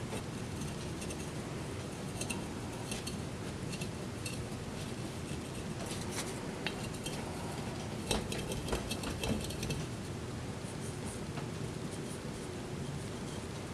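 Light clinks and taps of glass jars being handled and set down on a wooden bench, over a steady low background noise. The clicks come scattered, with a small cluster about eight to ten seconds in.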